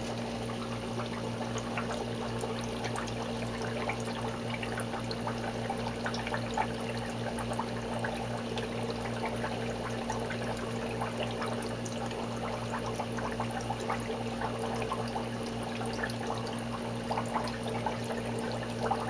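Steady bubbling and trickling of water in an open upflow algae scrubber, with a steady pump hum underneath. Small splashes and wet squelches come as hands pull clumps of algae out of the water.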